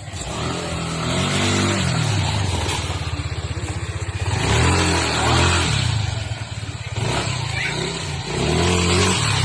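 Yamaha Aerox 155 scooter's single-cylinder engine revved up and let back down three times, as a test run of a newly fitted rubberized rear brake shoe for squeal and grip.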